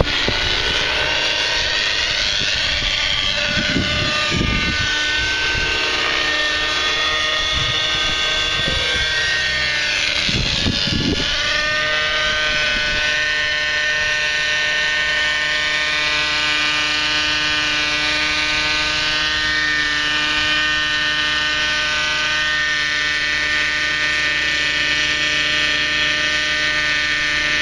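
Small two-stroke nitro glow engine of a Thunder Tiger 30-size RC helicopter running at flying speed, a steady high whine with rotor noise. The pitch bends down and back up briefly around four seconds in and again around ten seconds in, then holds steady while the helicopter hovers low over the grass.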